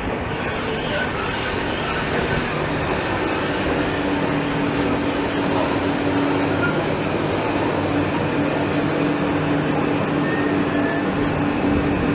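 Passenger train running at the station, a steady rumble that grows slightly louder. A steady hum strengthens about four seconds in, and brief high wheel squeals come and go.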